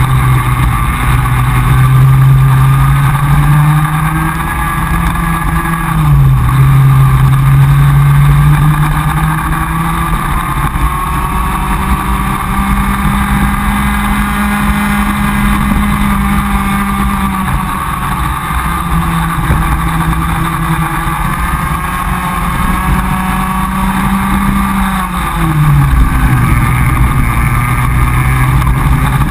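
Comer cadet kart's two-stroke engine heard from on board at racing speed, its note climbing along the straights and dropping sharply as the driver lifts for corners, near the start, about six seconds in and again near the end.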